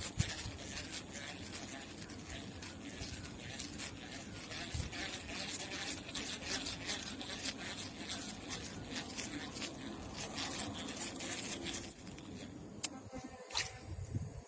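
Irregular scraping and rubbing with many small clicks.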